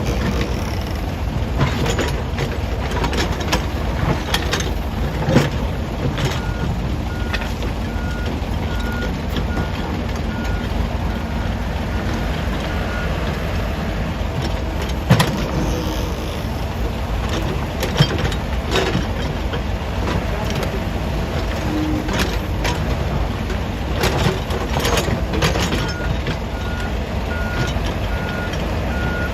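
Heavy diesel machinery running steadily, with scattered knocks and clanks. A reversing alarm beeps evenly in two spells, from about a fifth of the way in to nearly halfway, and again near the end.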